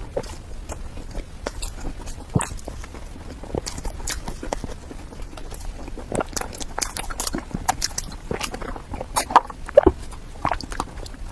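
Close-miked mouth sounds of someone eating soft cake: irregular wet chewing, smacking and small clicks, with a few louder smacks near the end.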